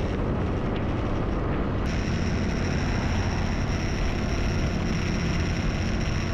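Motor scooter riding noise: the small engine running steadily under wind rushing over the microphone. About two seconds in, a thin steady high whine joins.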